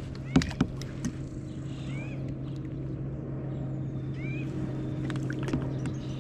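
A small motor running with a steady low hum, with a few sharp knocks in the first second and again near the end. A bird calls over it with a short rising-and-falling note about every two seconds.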